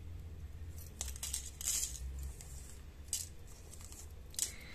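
Light crinkling and rustling of a small gold paper needle packet as fine beading needles are handled and counted, with a few soft ticks scattered through it.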